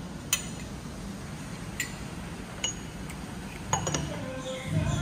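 Cutlery clinking against plates and glassware during a meal: about five separate sharp clinks, some with a brief high ring, over low room noise.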